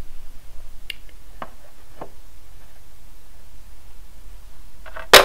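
Small plastic toy pieces of a dollhouse-style playset being handled and set in place: a few faint clicks, then one sharp, louder knock near the end.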